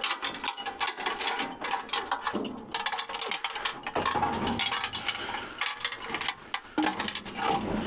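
Small metal items clinking and rattling as they are handled and put into a storage box, with many quick irregular clicks and knocks throughout.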